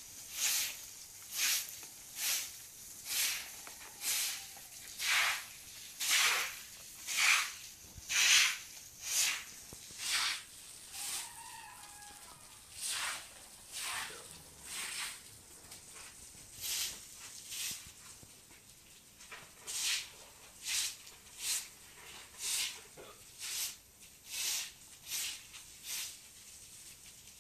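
Short straw hand broom sweeping wet concrete in repeated swishes, about one stroke a second, with a brief lull a little past the middle.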